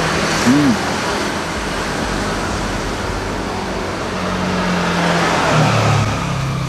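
Street traffic passing close by: a steady rush of vehicles that swells twice, with a low engine hum towards the end. A brief rising-and-falling tone sounds about half a second in.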